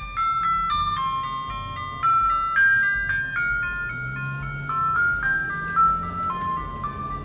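Ice cream truck's chime box playing its tune, a string of clear electronic notes stepping up and down.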